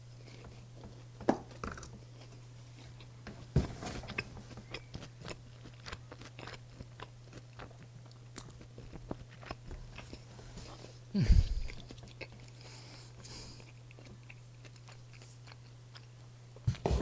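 A person biting and chewing food close to the microphone, with crisp crunches and wet mouth clicks, the crunch of a breaded fried cheese pork cutlet; a louder bite comes about 11 seconds in. A faint steady low hum runs underneath.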